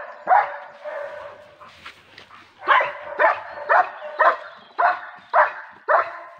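A dog barking: one bark, a pause of about two seconds, then a steady run of barks about two a second.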